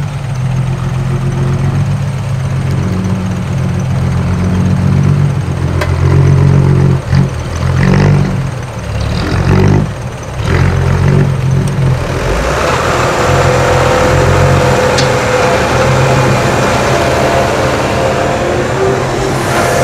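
Heavy diesel machinery engine running under load, its pitch rising and falling as it revs. About twelve seconds in, the sound turns to a brighter, hissier running noise.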